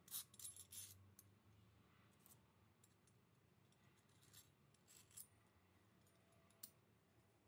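Near silence broken by faint, sharp little clicks and light scrapes: a cluster in the first second, then a few single clicks spread through the rest.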